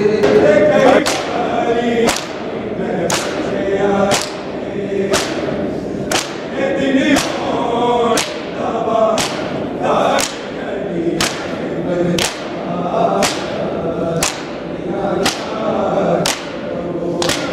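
A group of men chanting a Shia mourning lament (noha) in unison while striking their bare chests with open hands in matam. The strikes land together in a steady beat of about one slap a second.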